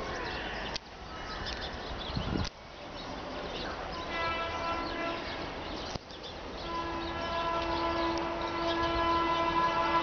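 WAP-7 electric locomotive's horn sounding as the train approaches: a short blast about four seconds in, then a long steady blast from about seven seconds in that grows louder.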